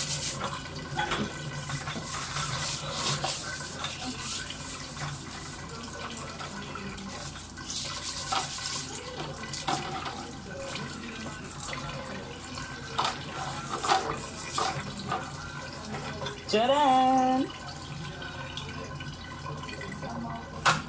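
Tap water running onto a metal fan grille while steel wool scrubs the wire, with scraping and short knocks of the grille. About three-quarters of the way through comes a brief rising voice-like sound.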